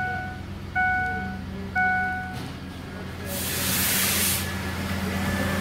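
Ford F-150's 4.6 L V8 idling steadily with its newly replaced alternator. Over it, the dashboard warning chime sounds three times about a second apart, then stops. About three seconds in comes a rush of hiss lasting about a second.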